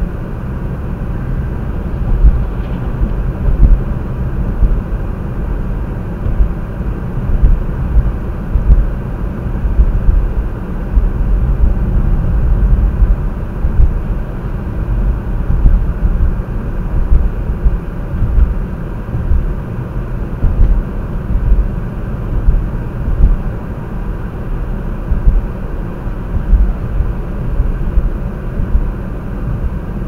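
Steady low rumble of a car driving on a snow-covered road, heard from inside the cabin: tyre and engine noise with uneven swells.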